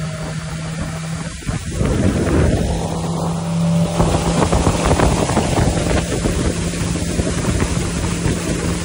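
Outboard motor running steadily at speed as a small boat planes across the water, with wind buffeting the microphone and water rushing along the hull. The wind and water noise swells sharply about two seconds in.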